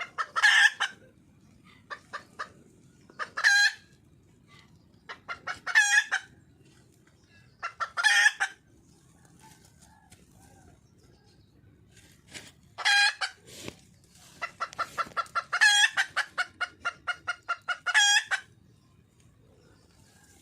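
Wild red junglefowl hen calling for a mate: short clucking calls every couple of seconds, then a quick run of about four clucks a second near the end.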